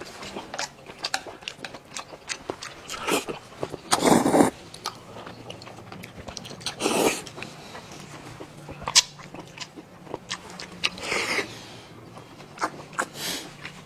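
Close-up eating sounds: chewing and crunching food with many short sharp clicks. There are three louder noisy bursts, at about four, seven and eleven seconds in.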